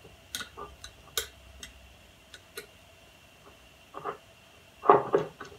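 Light metallic clicks and taps of steel engine parts being handled and seated as a cylinder assembly is worked back into place, with a few louder knocks near the end.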